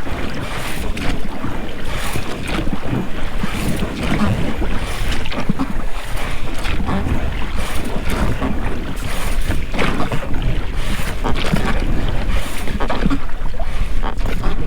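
Oars of an inflatable rowing boat dipping and splashing in the water in repeated strokes, with the sound of the oars working in rubber rowlocks. A heavy rumble of wind on the microphone runs underneath.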